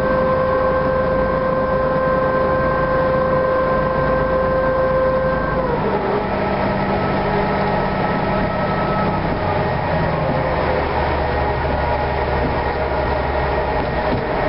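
Ferry's engines running steadily with a whine over a low hum. About six seconds in the whine drops in pitch and fades as the engine slows, and the low hum changes again a few seconds later.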